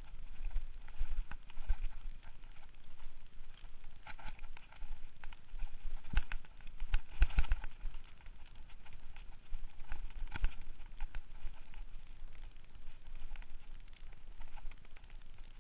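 Mountain bike rattling and clattering over a rough dirt singletrack, with irregular knocks from bumps. The hardest knocks come about six to seven and a half seconds in and again about ten and a half seconds in, over a low rumble of wind on the microphone.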